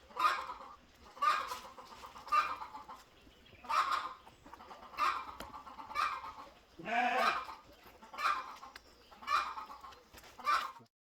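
A farm animal calling again and again in short calls, about one a second, with a longer call that falls in pitch about seven seconds in.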